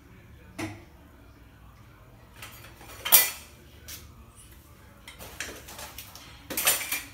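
Metal kitchenware clinking and knocking several times, loudest about three seconds in and again near the end, over the faint sizzle of butter foaming in a pan.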